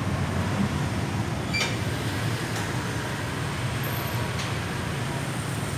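Steady low rumble of outdoor background noise with an even hiss over it, broken by a few faint clicks about one and a half, two and a half and four and a half seconds in.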